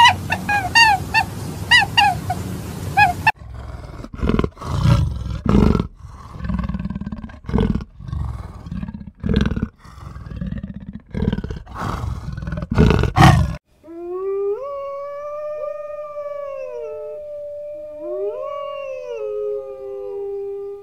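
For about three seconds, a series of short chirping calls that fall in pitch. After a hard cut comes a run of rough, noisy growling bursts from cheetahs. After a second cut, wolf-like dogs howl: one long, wavering howl, joined near the end by a second howl.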